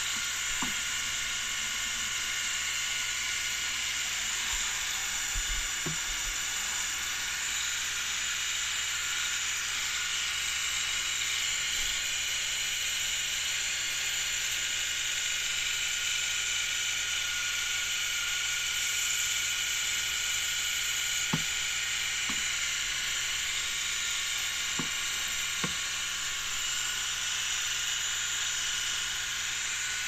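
Terrarium misting system spraying fine mist through its nozzle: a steady high hiss with a faint whine in it, and a few faint clicks.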